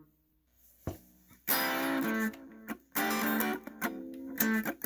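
Electric guitar played through a breadboarded MXR Distortion circuit, with diode clipping, into a Blackstar amp. After about a second of quiet there is a faint pick click, then from about a second and a half in, distorted notes and chords ring out in short phrases.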